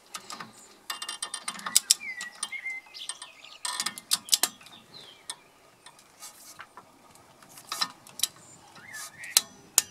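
Ratcheting torque wrench tightening a brake caliper bolt: runs of rapid ratchet clicks on the back-strokes, with single clicks in between. Birds chirp faintly in the background.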